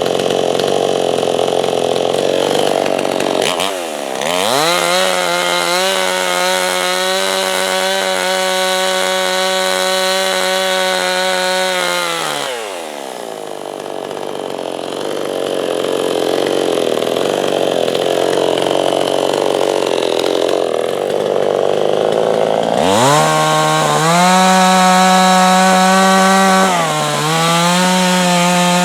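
Chainsaw cutting a slab lengthwise from a log freehand. The engine alternates between a high, steady full-throttle pitch and lower, rougher stretches where it labours, with its pitch falling and rising several times.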